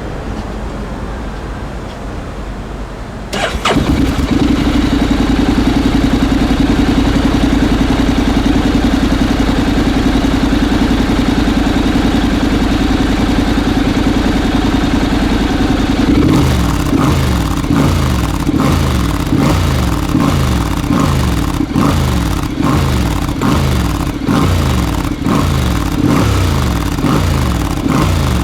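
Honda X-ADV's 745 cc parallel-twin engine, breathing through an IKAZUCHI slip-on muffler, starts about three seconds in and idles steadily. From about halfway on, it is blipped with short revs, over and over.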